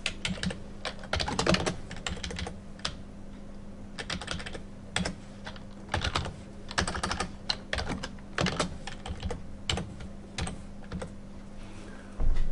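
Typing on a computer keyboard: short, irregular runs of key clicks with brief pauses between them.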